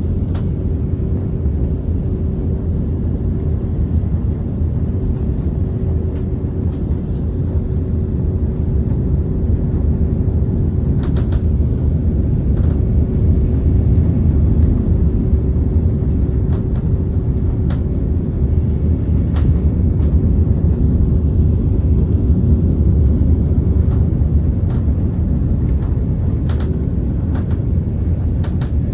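Jet airliner cabin noise: a steady, deep rumble of engines and airflow heard from inside the cabin, with a thin steady hum that drops away near the end.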